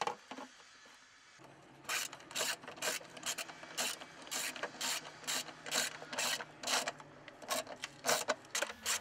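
Socket ratchet wrench clicking in quick, even strokes, about three a second, starting about two seconds in, as a bracket bolt is driven into a hot water cylinder.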